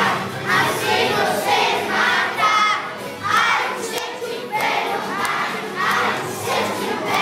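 A crowd of children cheering and screaming, in repeated shrill shouts.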